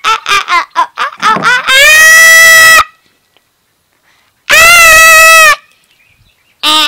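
A child's voice: a quick run of short high squeals, then two long, very loud, high-pitched screams, each about a second long, with a pause of almost two seconds between them.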